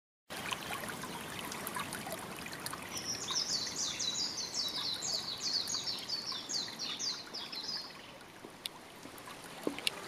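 Water trickling in a shallow stream, with a small songbird singing a long run of quick high notes from about three seconds in until about eight seconds in. The water sound falls quieter near the end.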